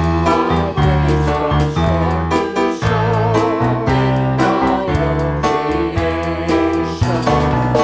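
Live worship praise band playing an upbeat praise song, with electric keyboard, a steady beat, and a singer holding wavering notes between sung lines.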